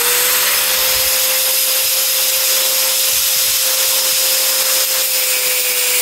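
Angle grinder with a metal cut-off disc running at full speed, cutting off a metal screw head. It makes a steady high whine over a loud hiss, just reaching full speed at the start.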